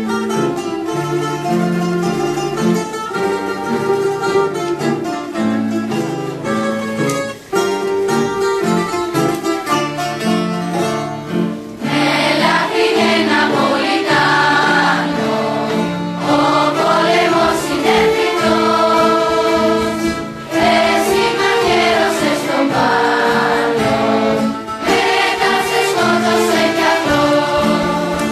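A school ensemble of guitars and other plucked strings with an accordion plays a song. About twelve seconds in, a large choir of teenage voices comes in singing over the instruments.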